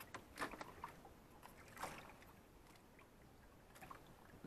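Near silence with a few faint taps or knocks, the clearest about half a second in and again near two seconds in.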